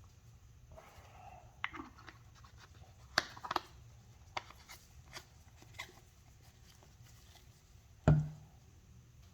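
Small clicks, taps and scrapes of plastic containers being handled on a work surface, with one louder knock about eight seconds in as something is set down.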